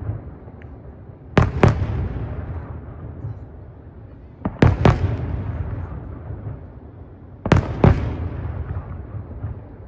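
Aerial firework shells bursting in three pairs of sharp bangs about three seconds apart, each bang trailing off in a long echo that fades.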